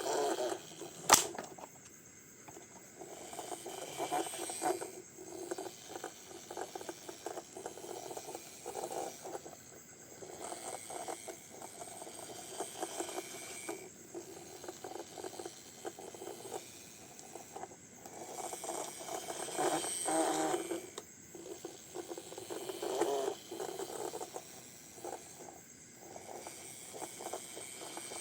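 Hand work on small parts: irregular clicks, taps and scraping, with one sharp click about a second in.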